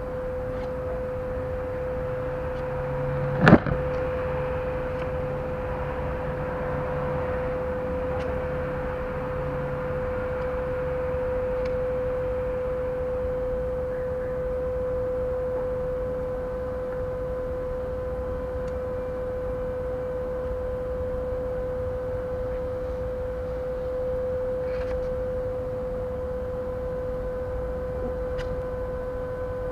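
A steady hum on one unchanging pitch over a low background rumble, with a single sharp click or knock about three and a half seconds in.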